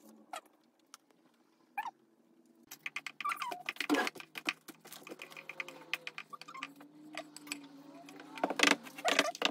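Spatula scraping and tapping banana bread batter out of a stainless steel mixing bowl into baking tins: a couple of lone clicks, then from about three seconds in a quick run of scrapes and knocks of the spatula on the metal bowl.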